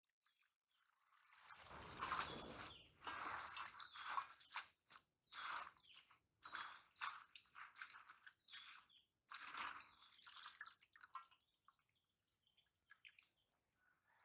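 Water poured into a steel basin of spinach leaves, a rush lasting about a second, followed by hands swishing and squeezing the leaves in the water in short irregular splashes and drips that thin out near the end.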